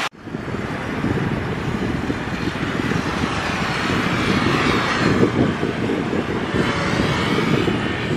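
CFM56-7B jet engines of a Boeing 737-900ER on approach, a steady distant rumble and whine that swells a little midway, with wind buffeting the microphone.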